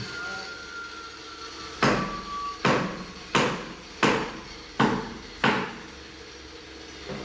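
Six heavy hammer blows on concrete, evenly spaced about two-thirds of a second apart, each dying away quickly, over a steady background hum.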